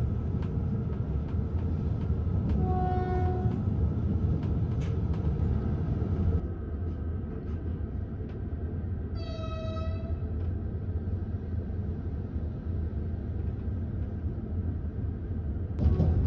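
Steady low rumble of a passenger train running on the track, heard from inside the sleeping car, with two short train horn blasts: a lower one about three seconds in and a higher, slightly longer one near the middle.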